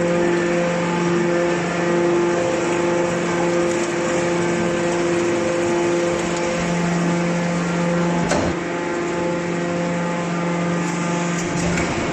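Hydraulic metal baler's electric motor and hydraulic pump running with a steady hum. There is one sharp knock a little over eight seconds in.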